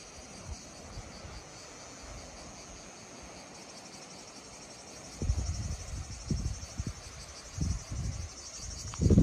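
A steady, high-pitched insect chorus with a fine pulsing texture, sounding throughout. From about five seconds in, irregular low rumbling noise comes and goes and is loudest near the end.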